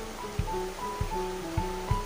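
Background music: a simple melody of short held notes over a steady beat.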